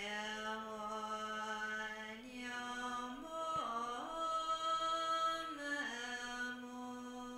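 A single voice chanting a Buddhist dedication prayer to a slow melody, holding long notes that step upward in pitch.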